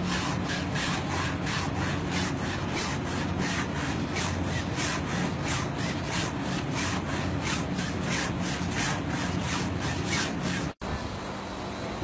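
A long board scraped hard back and forth across denim jeans stretched over a stuffed form, wearing the fabric ragged to make ripped jeans: fast, even scraping strokes, about three a second, that stop abruptly near the end.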